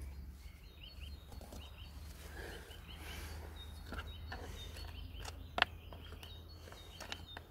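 Small birds chirping in the background over a steady low hum, with scattered clicks and taps as the chainsaw's parts are handled; the sharpest click comes about five and a half seconds in.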